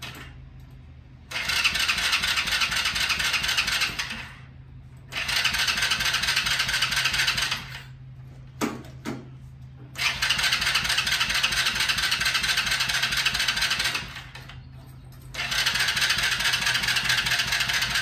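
Small go-kart engine turned over by its electric starter four times with the choke on, each cranking attempt lasting two to four seconds. It cranks but does not fire. Two short knocks come between the second and third tries.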